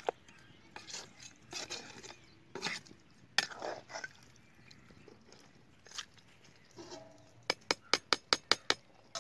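Steel slotted ladle stirring chicken curry in an iron kadai, with scattered scrapes and clinks against the pan. Near the end comes a quick run of about eight sharp metal taps, the ladle knocked against the pan.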